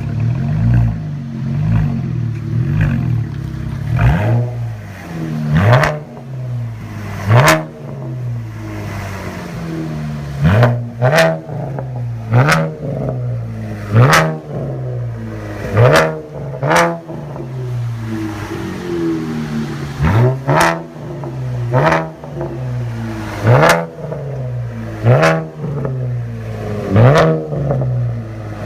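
2015 Chevrolet Camaro's 3.6-litre V6 idling through an aggressive straight-through custom exhaust, blipped with a dozen or so quick throttle revs that rise sharply and drop straight back to idle.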